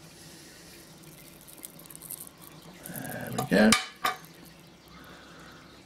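Light metallic clinks and scrapes of a thin milled nickel silver sheet being prised off double-sided tape on a small engraving machine's bed, with one louder, brief scraping noise about three and a half seconds in.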